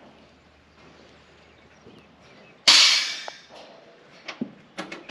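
Equipment being handled on a steel railcar loading platform: one sudden loud clank about two and a half seconds in that tails off over about a second, then a few light clicks and taps near the end.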